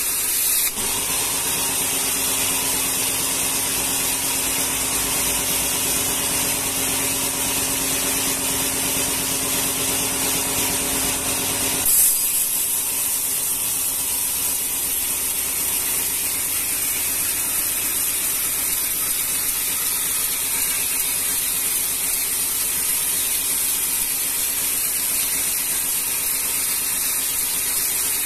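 A sawmill's vertical band saw cuts a rengas log into boards: a steady high hiss of the blade through the wood over the machine's hum. About twelve seconds in there is a brief louder moment, and the lower hum falls away.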